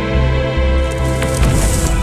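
Background music with steady held tones over a strong bass line. About a second in, a rush of hissing noise with one sharp crack comes in over it.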